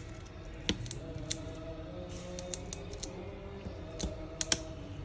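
Light, sharp clicks and ticks of a small repair tool against the iPad 2's internal parts while a sticker is being peeled off, about a dozen at irregular intervals.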